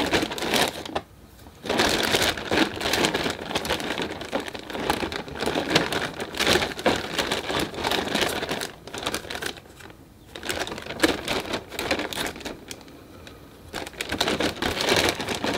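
A hand rummages through a plastic bag of watercolour paint tubes: crinkling plastic with many small clicks, broken by a few short pauses.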